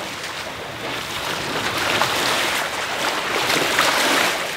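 Sea water rushing and splashing past the hulls of a sailing catamaran under way, a steady hiss that grows louder about a second in.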